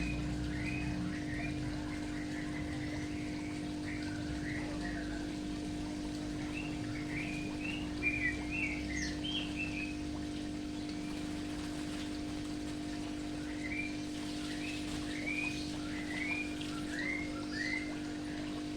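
Small birds chirping in short, rising calls, coming in clusters, over a steady low hum and faint running water.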